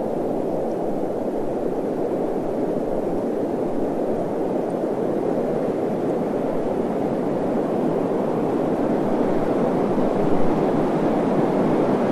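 A steady, even rushing noise, deep and without any tone or rhythm, growing a little louder in the last few seconds.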